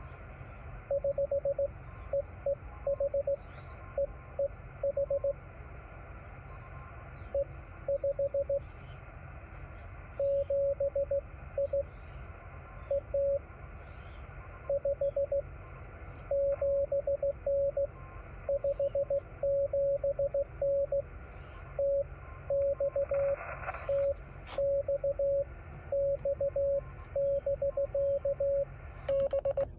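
Morse code (CW) from a Yaesu FT-817 transceiver: a single steady beep keyed on and off in dots and dashes, over steady receiver hiss. The keying comes in short groups at first and runs almost without a break in the second half.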